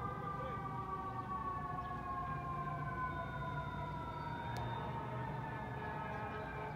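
A fire truck siren wailing, its pitch falling slowly and steadily, with a brief rising sweep about four and a half seconds in. A low hum of street traffic lies underneath.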